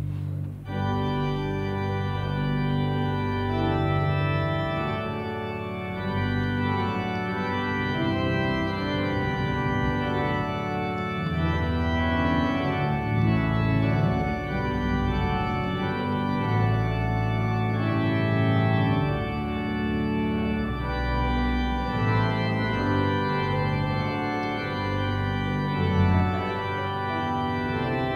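Three-manual church organ playing full chords that change about once a second, starting about half a second in.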